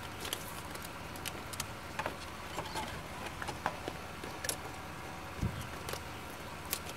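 Quiet car cabin with a low steady hum and a scattering of small irregular clicks and rustles from hands handling a phone at the centre console.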